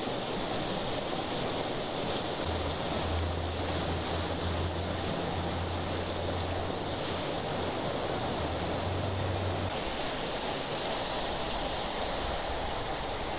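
Steady rushing of stream water pouring out of a culvert pipe and over a small riffle into a pool. A low rumble runs underneath from about two and a half seconds in until near ten seconds.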